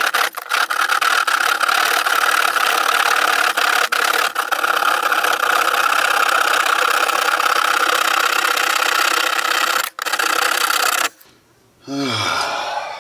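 Hand keyhole saw rasping through the scenery shell of a model railroad mountain in steady back-and-forth cutting, with a few brief breaks; the sawing stops about eleven seconds in. Near the end comes a short tone falling in pitch.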